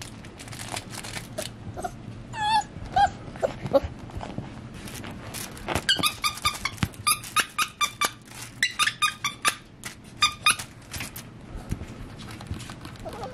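Beagle puppy giving two short, wavering whimpers, then a run of short, high squeaks all at the same pitch, about three a second, lasting some four seconds.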